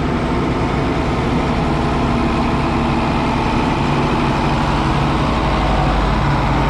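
Large diesel tractor engine running steadily at an even pitch.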